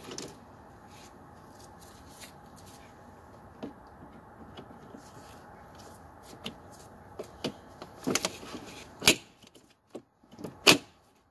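Plastic poultry crate panels knocking and clicking together as a sidewall is lined up and fitted onto the crate's base: a few sharp clicks spread out, then a run of louder knocks in the last few seconds, over a steady faint hiss.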